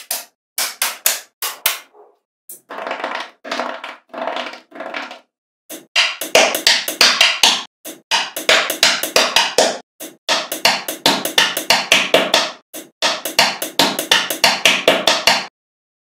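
Small magnetic balls clicking and clattering against each other as they are snapped together, in quick runs of sharp clicks with short gaps between them.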